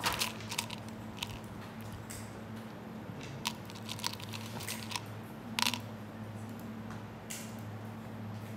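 Plastic buttons clicking against each other as fingers rummage through a paper cup of them: scattered sharp clicks, with a small cluster about five and a half seconds in. A steady low hum runs underneath.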